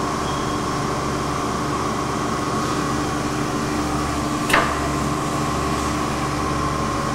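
Chevalier CG-1440A universal cylindrical grinder running idle between cycles with a steady hum and steady tones. One sharp click about four and a half seconds in.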